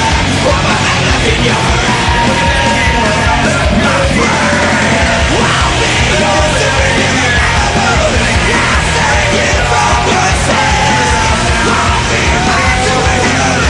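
Loud rock music with shouted vocals over a full band.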